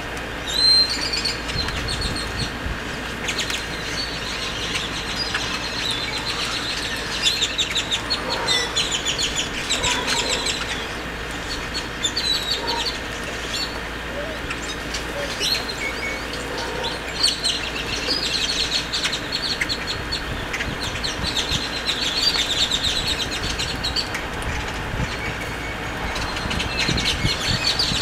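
A flock of great-tailed grackles calling, with rapid clicking chatter and squeaky notes coming again and again, and wings fluttering as the birds hop and flap about.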